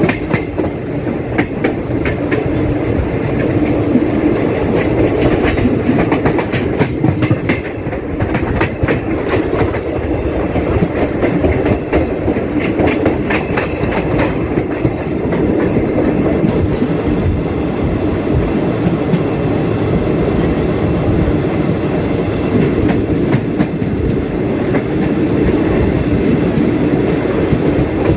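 Express train coaches running at speed, heard from an open coach doorway: a steady rumble of wheels on rails with clickety-clack over the rail joints. The clicks come thickest through the middle stretch.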